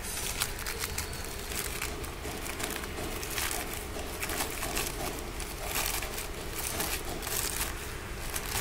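Bubble wrap and a plastic bag crinkling and crackling in irregular bursts as hands unwrap new piston rings.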